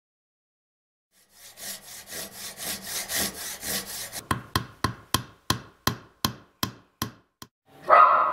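Wood being hand-sawn in quick strokes, followed by about ten sharp hammer knocks at roughly three a second. Then comes a single dog bark, the loudest sound, near the end.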